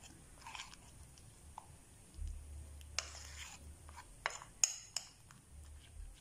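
Metal spoon stirring a thin flour-and-water batter in a ceramic plate, scraping and clinking lightly against the plate, with a few sharper clicks in the second half.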